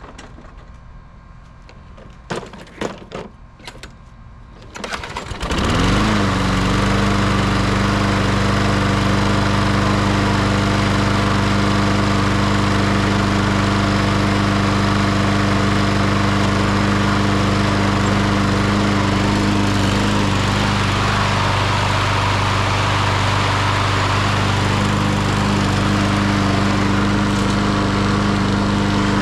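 Walk-behind lawn mower's small engine being pull-started: a few quick rattles of the recoil starter, then at about five seconds a pull catches and the freshly primed engine comes up to speed and runs steadily.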